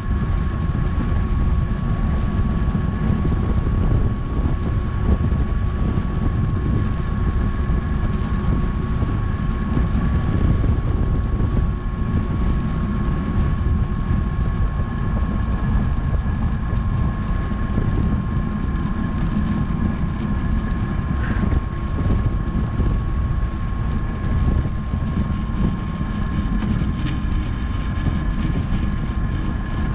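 Wind rushing over a GoPro's microphone as a bicycle coasts fast downhill: a dense, steady low rumble with a thin, steady whine above it.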